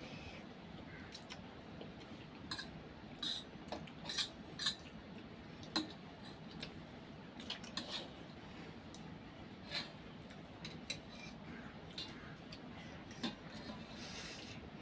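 Forks clinking and scraping against stainless-steel plates while noodles are eaten, in short sharp clinks at irregular intervals.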